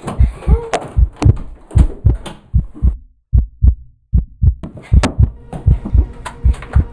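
Horror-film heartbeat sound effect: a fast run of low, dull thumps, with sharper knocks and clicks over them. It cuts out briefly twice about halfway through.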